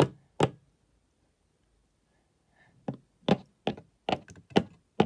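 Plastic Schleich toy horse's hooves knocking on a hard surface as it is moved along at a trot. Two knocks come right at the start, then a pause of about two seconds, then six more in a quick, even beat.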